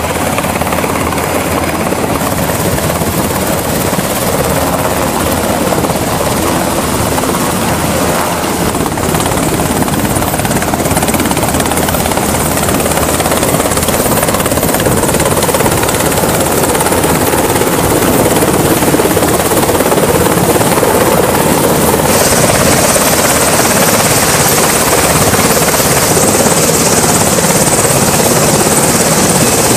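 Sikorsky H-60 Seahawk navy helicopter running: a steady, loud rush of rotor and turbine engine noise. About two-thirds of the way in, the sound abruptly becomes hissier and brighter.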